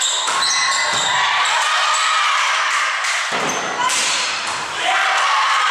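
Volleyball rally in a large sports hall: several sharp slaps of hands and arms striking the ball, amid high-pitched shouting from the young players and onlookers, echoing off the hall.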